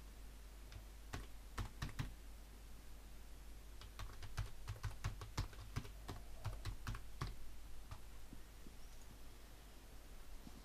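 Typing on a computer keyboard: a few scattered keystrokes, then a quick run of keystrokes in the middle, faint and close.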